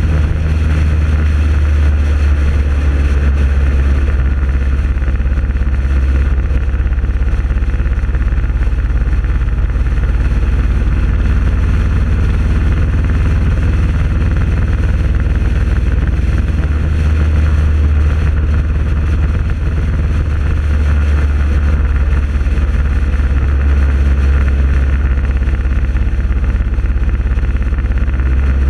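Motorcycles cruising at a steady speed on the highway: a constant low engine drone mixed with road and wind rush.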